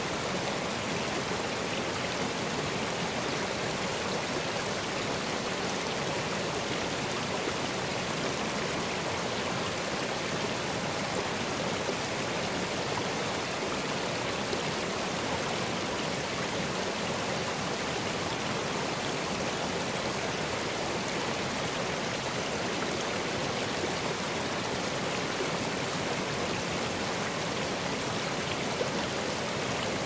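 Shallow rocky stream running over stones and small riffles, a steady, even rush of water.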